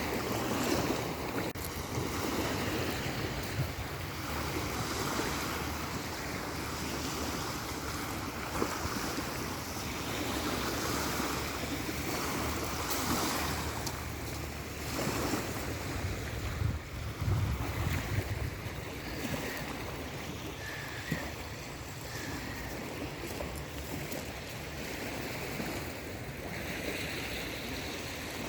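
Black Sea surf breaking and washing along the shore in steady, swelling waves, with wind gusting on the microphone.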